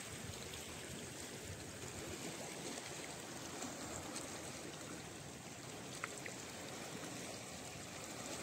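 Faint, steady wash of shallow seawater trickling among the rocks of a low-tide shore, with a couple of small clicks about six seconds in.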